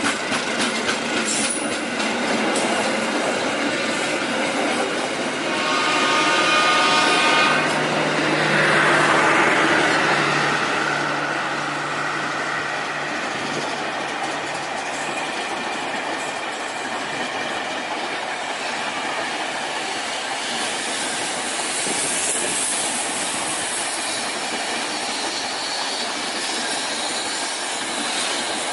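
Passenger train coaches rolling past on the rails, a steady rush of wheel and rail noise with clickety-clack. A brief pitched tone sounds around six seconds in, and the noise is loudest between about six and ten seconds.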